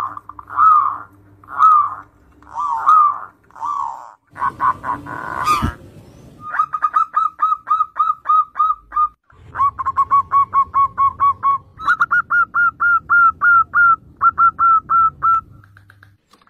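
Zebra doves cooing. First comes a run of separate coos, about one a second, then a sharp click about five and a half seconds in. After that, rapid trains of short staccato coo notes follow, about five a second, in three runs.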